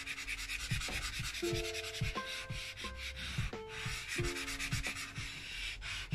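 Soft pastel stick rubbed back and forth on black paper to colour in a red circle, a quick run of scratchy strokes. Soft background music with held notes plays underneath.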